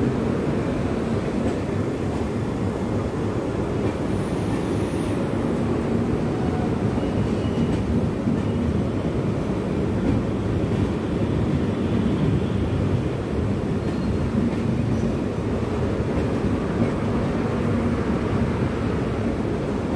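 LHB passenger coaches of a departing express rolling past along the platform: a steady, low rolling noise of wheels on rail.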